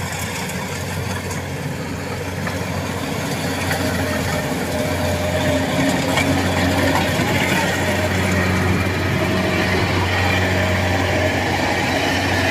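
Kubota rice combine harvester running steadily as it cuts and threshes, its engine hum growing louder as it comes closer.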